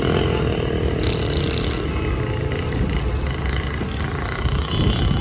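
Street traffic: the engines of passing motorcycles and auto-rickshaws running, a steady low rumble with an engine drone through the first couple of seconds.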